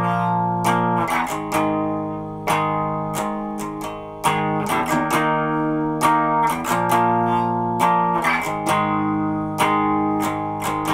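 Electric guitar playing E flat, B flat and A flat power chords, strummed in a steady rhythm with the chords ringing between strokes. The three-chord pattern goes round about twice.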